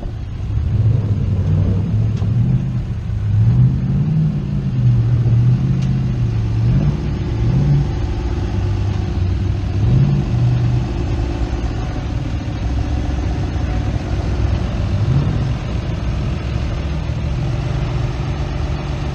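Engine of a lifted Ram pickup rock crawling up a steep ledge, revving in repeated rising and falling pushes, then holding a steadier, lower note for the last several seconds.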